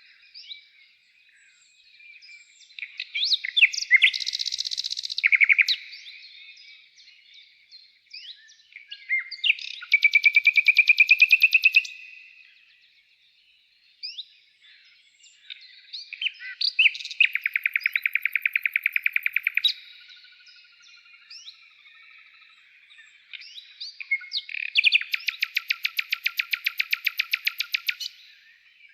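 Songbird singing: scattered chirps and four bursts of rapid trills, each lasting two to three seconds.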